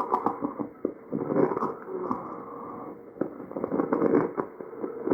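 Breathing over a patient's trachea, heard through an electronic stethoscope. Swelling breath noise comes and goes, with short crackling pops scattered through the breaths: tracheal crackles.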